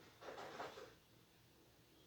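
Near silence, with one brief faint noise about a quarter second in.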